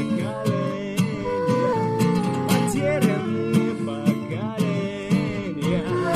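Band music in an instrumental passage: guitar over a steady beat of about two hits a second, with a melody line that slides up and down in pitch.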